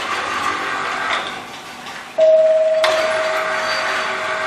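Workshop machine running: a steady hiss, then about halfway in a steady whine starts abruptly and holds, with louder hiss soon after.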